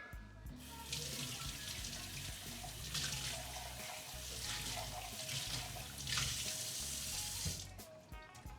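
Water running from a tap into a sink, starting about a second in and shut off near the end.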